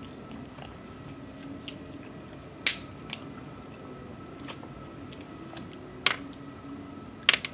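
A person eating mussels and snow crab legs: quiet chewing with a few sharp clicks and snaps from the mouth or shells, the loudest a little under three seconds in, more near the end.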